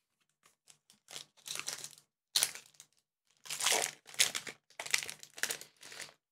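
Trading card pack wrapper crinkling in a run of short irregular bursts as it is handled and opened.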